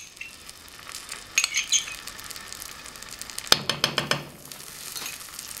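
Butter sizzling as it melts into hot caramelised sugar in a nonstick pan, with a few clinks and scrapes of a spoon against the pan, the sharpest about three and a half seconds in.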